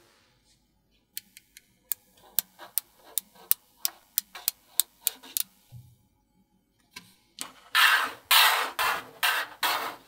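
Small magnetic steel balls clicking sharply together, a few snaps a second, as they are pressed into a flat hexagonal sheet, some clicks ringing briefly. Near the end come louder scraping, rattling bursts as the magnet pieces are pushed and slid across the table.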